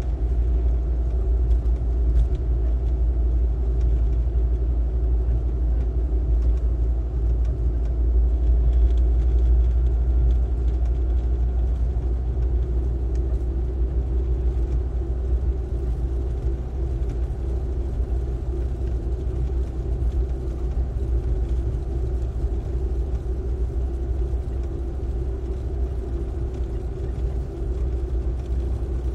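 Car driving at road speed, heard from inside the cabin: a steady low rumble of engine and tyres on asphalt.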